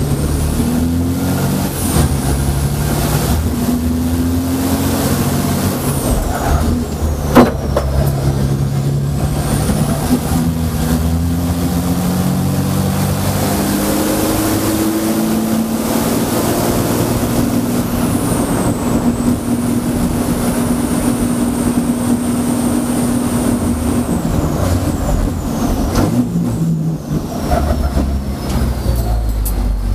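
A 1200 HP Mercedes-Benz race truck's diesel engine, heard from inside the cab under hard acceleration. Its pitch climbs in steps through the gears, then holds steady at speed with a high whistle over it, and eases off near the end. A single sharp bang comes about seven seconds in.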